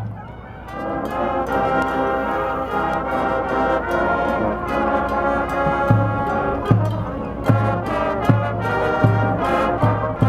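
Marching band brass section of trumpets and trombones playing loud sustained chords, entering under a second in. From about six seconds in, bass drums join with steady hits about every three-quarters of a second.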